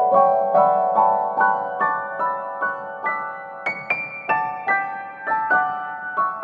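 Background piano music: single notes and chords struck at a gentle, even pace, about two or three a second.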